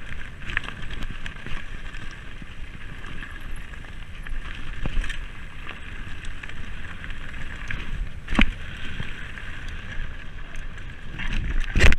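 Mountain bike rolling fast down a dirt and stone trail: steady tyre and rattling frame noise, with sharp knocks from bumps about eight seconds in and again near the end.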